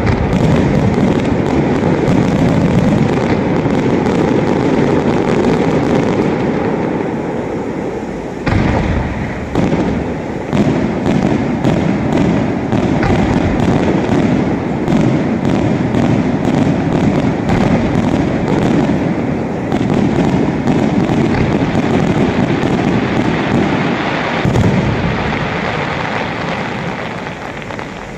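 Fireworks display: aerial shells bursting in a dense, continuous barrage of booms, with many sharp bangs in quick succession through the middle and strong fresh bursts about eight and twenty-four seconds in. The barrage dies away near the end.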